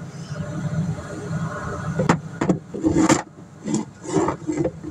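Cardboard playset pieces and plastic toy figures being handled and set down on carpet: a run of short clatters and scrapes starting about two seconds in, over a steady low hum.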